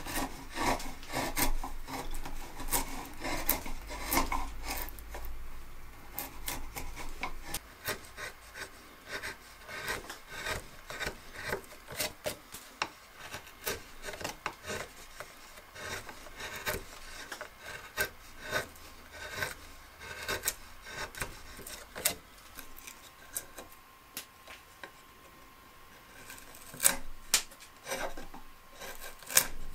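Hand chisels and a gouge paring and slicing the wood of an old bed frame: a quick, irregular run of short scraping cuts, with a few sharper, louder cuts near the end.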